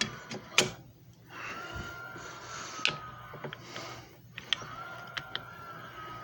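Small electric motor of a JFJ Easy Pro disc repair machine whining steadily in short runs that stop and restart, with sharp clicks and knocks in between and a low hum underneath.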